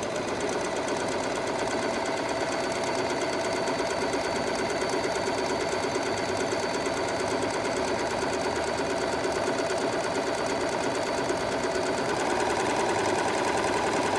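Serger (overlock machine) running at a steady speed, stitching a 3-thread rolled hem over a fine wire along the fabric edge.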